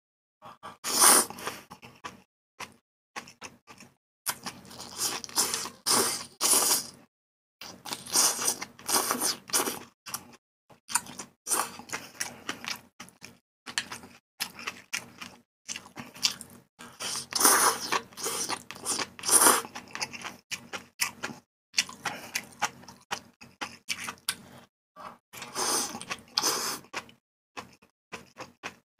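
Close-miked eating of mala tang: noodles slurped in from chopsticks and wet chewing, in irregular bursts with short silent gaps, the loudest slurps about a second in, around 17 to 19 seconds, and near 26 seconds.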